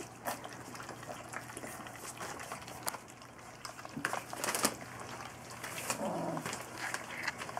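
Six three-week-old golden retriever puppies lapping and slurping wet mush from a stainless steel puppy feeding pan: a steady run of small wet smacks and clicks, with a few sharper ticks against the pan.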